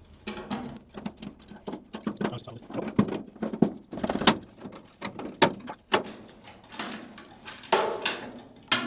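Irregular clanks, scrapes and sharp taps of thin steel sheet metal being worked and handled, with several louder knocks through the middle.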